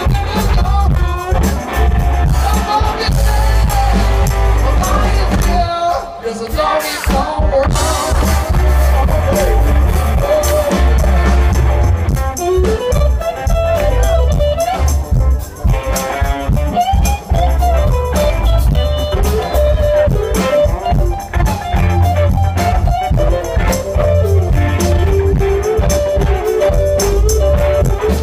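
Live Southern rock band playing through a PA, heard from the crowd: electric guitars, bass and drums, with a man singing lead through the second half. The bass and drums drop out briefly about six seconds in.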